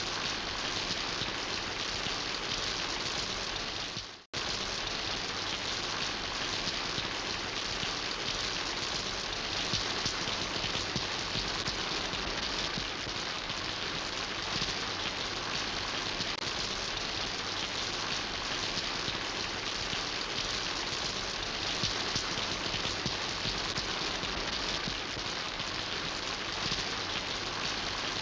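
Steady rain falling with a dense, even hiss of drops. The sound fades out and cuts back in about four seconds in.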